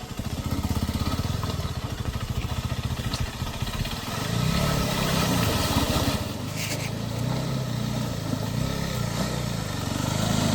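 Motorcycle engine running at low revs with a steady exhaust beat, the revs rising and falling a little as it rides slowly over rough ground.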